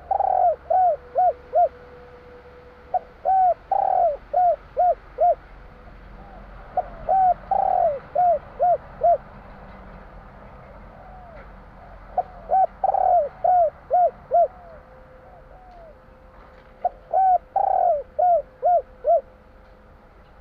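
Spotted dove (tekukur) cooing: phrases of a loud drawn-out coo followed by three or four short quick coos, repeated about every four to five seconds.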